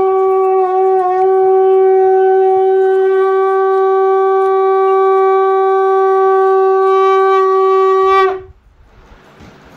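Conch shell (sangu) blown in one long, steady, loud note. It stops abruptly about eight seconds in.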